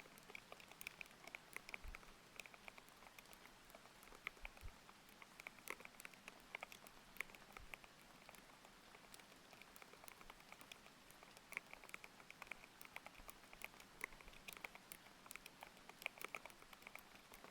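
Continuous typing on a mechanical keyboard with Aqua King linear switches: quick, irregular keystroke clicks, several a second, with the low thock sound of linear switches. A faint steady hiss of rain lies underneath.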